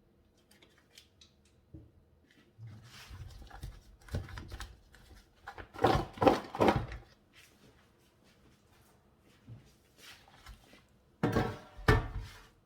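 Kitchen food-preparation handling noises: irregular rustling, knocks and scraping as the oiled chicken and its marinade are worked in a bowl, with louder clusters about six seconds in and again near the end.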